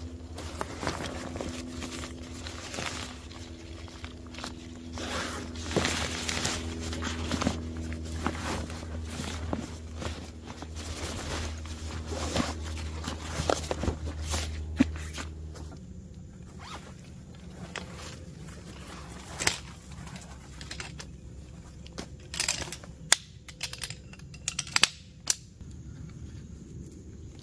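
Rustling and crinkling of backpack fabric and gear being pulled out of the pack, over a low steady hum. About halfway through the hum stops, and a few sharp clicks and snaps follow as a folding camp chair's frame is put together.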